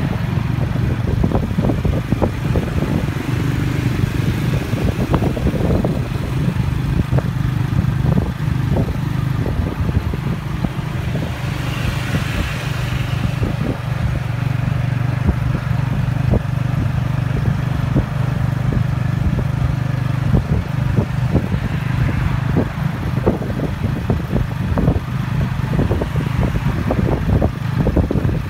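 Motorcycle engine running steadily while towing a tuk-tuk passenger carriage, heard from the carriage, with the carriage rattling and clattering over the road throughout. A brief hiss comes about twelve seconds in.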